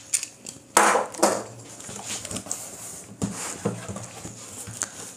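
Cardboard carton being opened by hand: flaps and inner cardboard pieces lifted and folded back, giving a few short scraping rustles and knocks, the loudest about a second in.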